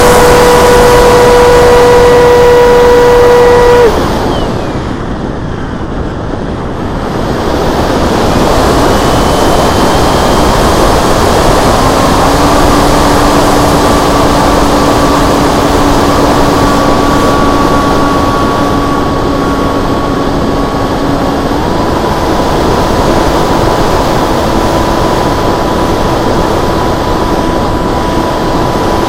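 Onboard sound of a Multiplex FunJet Ultra model jet's electric motor and pusher propeller: a steady high whine that cuts off about four seconds in, leaving only the rush of air as it glides. The motor comes back at a lower pitch about twelve seconds in and steps up a little after about twenty-one seconds, with the air rushing past throughout.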